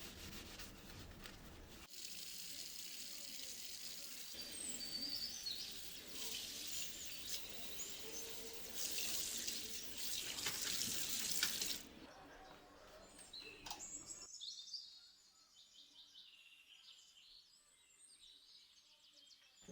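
Running water hissing and splashing steadily, then stopping suddenly about twelve seconds in, with small birds chirping faintly throughout.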